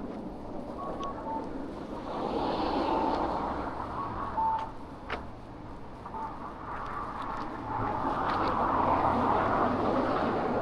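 City street ambience: the steady sound of traffic going by, with a few short electronic beeps and occasional clicks.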